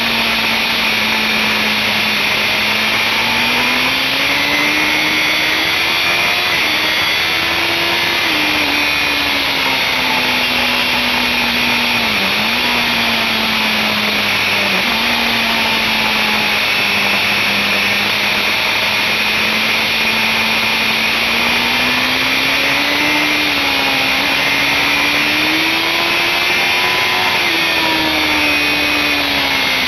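BMW S1000RR inline-four sport bike engine running hard on track, under loud wind rush, its pitch climbing and falling as the rider accelerates and slows, with two quick dips in the middle.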